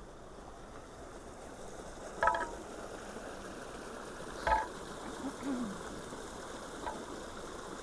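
Water rushing steadily out of a culvert that has just been unclogged, with two short sharp sounds over it about two and four and a half seconds in.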